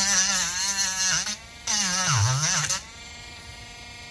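Dremel rotary tool grinding old glue off an RC tire rim's bead in two bursts of about a second each, with a high whine; in the second burst the pitch sags as the bit bears down on the glue.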